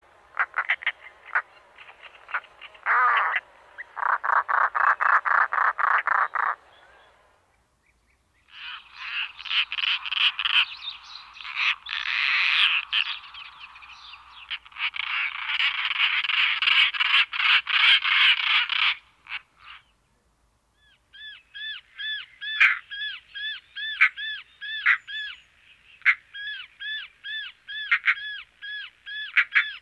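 European roller calling: harsh, crow-like rattling calls in long runs of rapid pulses, then, after a brief pause, a steady series of shorter repeated notes about two a second.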